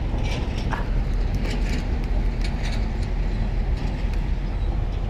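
Strong wind buffeting the microphone: a steady, uneven low rumble, with a few faint short clicks over it.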